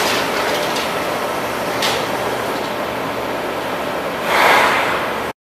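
Nisshinbo HIQ-1250 CNC turret punch running: a steady mechanical whir with one sharp knock about two seconds in, and a louder rushing swell near the end. The sound then cuts off abruptly.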